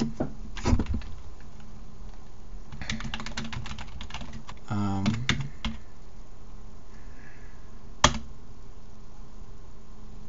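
Typing on a computer keyboard in short bursts: a few keystrokes under a second in, a quick run about three seconds in and more around five seconds, then one single sharp click about eight seconds in.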